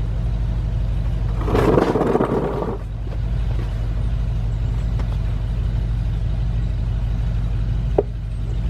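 An engine idling steadily, a low, even hum. About one and a half seconds in there is a brief, louder rough noise, and a single sharp click comes near the end.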